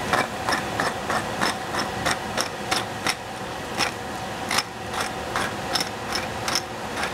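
A kitchen utensil clicking in an uneven run, about three sharp clicks a second, over a steady hiss, as the dish is seasoned with salt and pepper.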